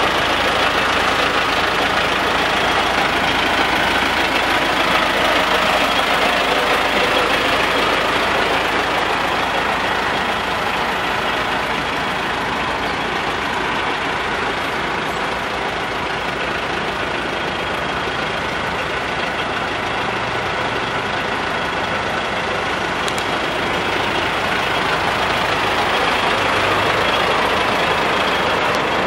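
GAZ-3309 truck's MMZ D-245 four-cylinder diesel idling steadily.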